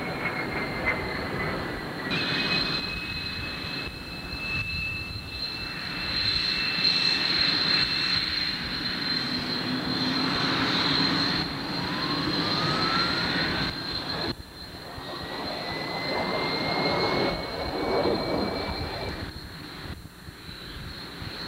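Jet aircraft engines whining: a high steady turbine whine over a rushing noise, with other whining tones, one falling in pitch near the start and one rising slowly through the middle. The sound changes abruptly a few times.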